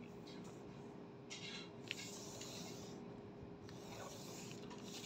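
Faint rubbing and rustling of a folded sheet of A4 paper being handled, about a second long stretch in the middle, with a small click near two seconds in.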